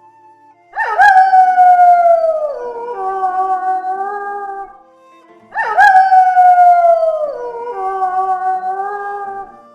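A wolf howling twice. Each howl starts suddenly on a high note and slides down in pitch, over background music.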